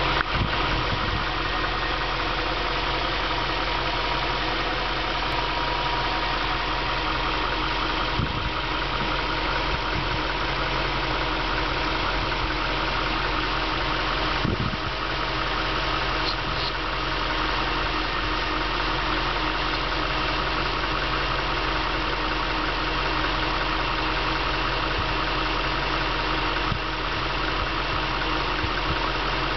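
Car engine idling steadily, with a couple of brief knocks about eight and fourteen seconds in.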